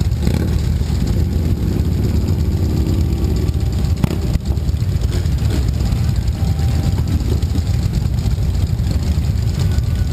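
Several cruiser motorcycles idling together in a steady low rumble, with a single sharp click about four seconds in.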